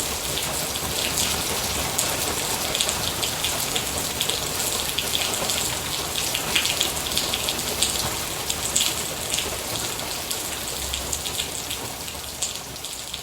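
Steady rain falling, with many short sharp drop ticks over an even hiss. The sound fades out gradually over the last few seconds.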